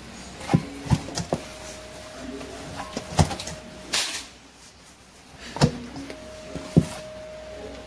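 Hands kneading a flour-and-cornmeal dough in a stainless steel bowl: irregular thumps and knocks as the dough is pushed down and the metal bowl shifts, with a short scuff of hand on dough.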